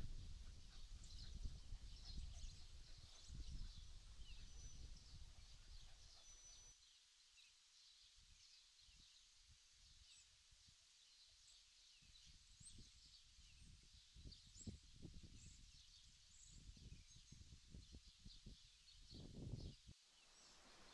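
Faint woodland birdsong: many small birds chirping and twittering, with a couple of brief clear whistles. A low rumble underneath stops abruptly about seven seconds in, and a few soft low knocks follow later.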